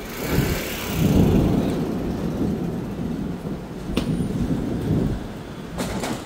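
Thunder rumbling long and low, swelling about a second in and slowly dying away, with a sharp click about four seconds in and another near the end.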